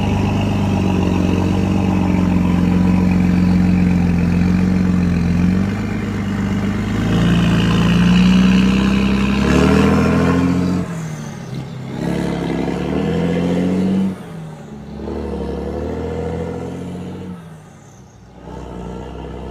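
Iveco Tector truck's diesel engine running under load and revving up, its pitch rising and then falling off sharply at each gear change, three times in the second half.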